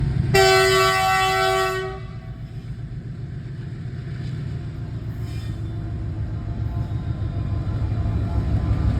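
Twin WDG6G diesel locomotives: a horn blast lasting about a second and a half right at the start, then the low rumble of the diesel engines, growing steadily louder as they are notched up hauling a heavily loaded freight train.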